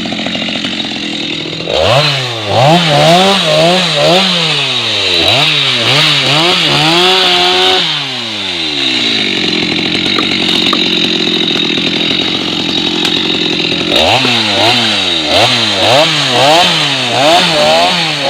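Stihl MS 250 two-stroke chainsaw cutting wood. Under load its engine pitch rises and falls two or three times a second, with a stretch of steadier, lower running in the middle before the swinging pitch returns near the end.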